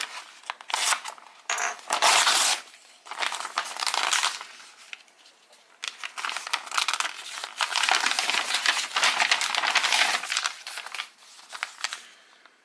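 Wrapping being crinkled and torn open by hand, in irregular bursts with a quieter lull partway through.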